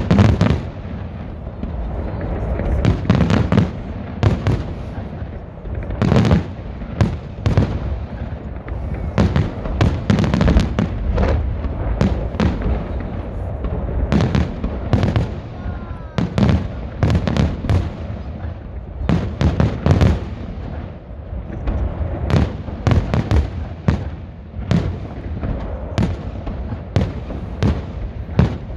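Festive fireworks salute: many sharp bangs of shells bursting at irregular intervals over a continuous low rumble.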